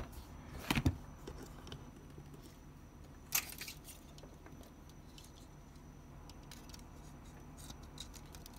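Hard plastic model-kit parts clicking and knocking in the hands as an Aile Striker backpack is fitted onto a Gundam plastic model: a few sharp clicks in the first second, another about three and a half seconds in, then faint light ticks.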